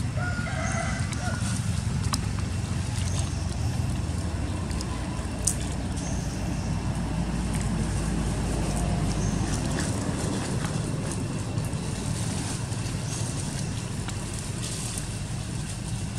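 Outdoor ambience: a steady low rumble with a short distant pitched call about half a second in and a fainter one near nine seconds, plus a single sharp click about five and a half seconds in.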